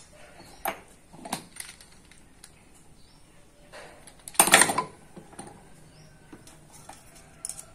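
Light metallic clicks and clinks of a planer blade and its small steel parts being handled with a screwdriver. A louder metal clatter lasting about half a second comes about halfway through.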